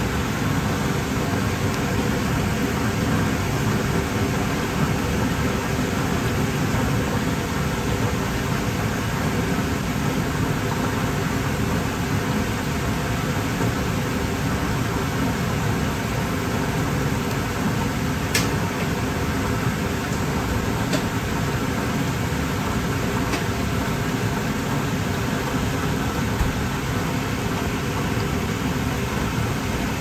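Vegetables deep-frying in a commercial fryer: the oil gives a steady bubbling sizzle, over a faint steady mechanical drone. A few faint ticks come about two-thirds of the way through.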